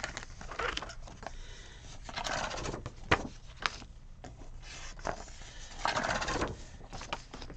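Paper pages of a discbound planner being turned and handled: two longer rustling swishes with a few sharp clicks and taps between them.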